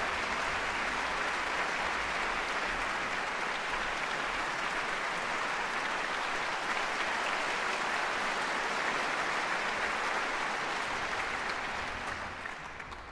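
Concert-hall audience applauding steadily, the clapping dying away near the end.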